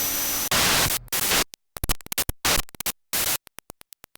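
Electronic static or glitch sound effect: loud bursts of white noise that stutter and break up, ending in a quick run of short ticks near the end.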